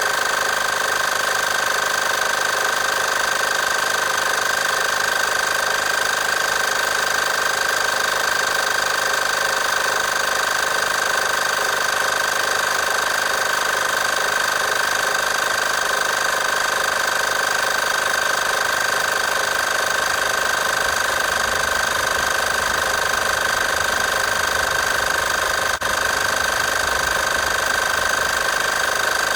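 Portable car tyre inflator's piston air compressor running steadily, a continuous mechanical buzz with a strong high steady hum.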